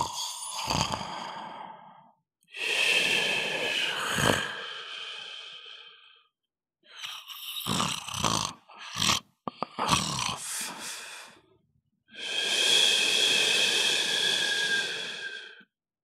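Rooster crowing: two long crows several seconds apart, with a few shorter sounds between them.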